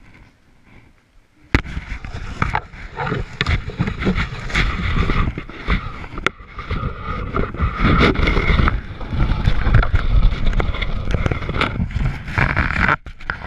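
Handling noise from a camera rubbing and knocking against a ski jacket: loud, irregular rumbling and scraping with scattered sharp clicks, beginning with a click about a second and a half in after a quiet start.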